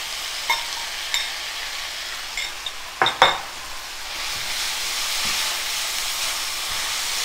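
Noodles in sweet soy sauce sizzling in hot oil in a nonstick frying pan as they are tipped in and stirred with a nylon spatula. A few light clinks come in the first couple of seconds and a couple of sharp knocks about three seconds in. Then a steady frying sizzle grows louder as the noodles are tossed.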